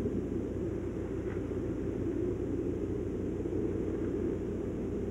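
A steady low rumbling noise with a few faint soft ticks.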